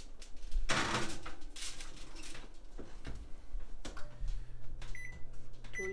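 Kitchen oven being loaded and set: a short scraping rush and scattered knocks as the foil-covered pan goes in, then short high electronic beeps from the electric range's control panel over a low steady hum.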